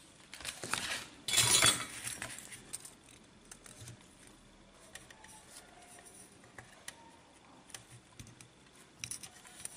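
Small metallic clicks and rattles of a soldering iron and wire leads against the terminals of a metal-cased power transistor on its heatsink, as the base and emitter wires are unsoldered. The handling is loudest in the first two seconds, then turns to faint scattered ticks, with a few more near the end.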